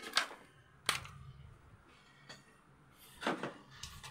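Handling knocks and rustles from the phone camera being carried about: a few small knocks, a sharp click about a second in, and a scuffing rustle near the end.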